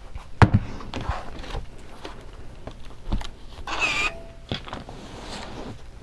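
Iron and fabric handled while pressing a quilt seam: a sharp knock about half a second in, scattered clicks and taps, and a brief hiss with a short squeak about four seconds in.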